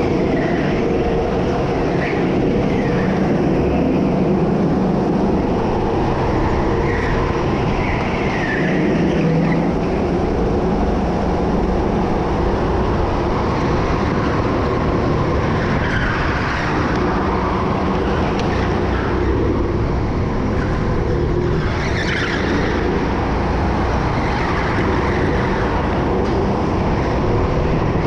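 Go-kart engine running steadily at speed, with short squeals from the tyres in the corners every few seconds.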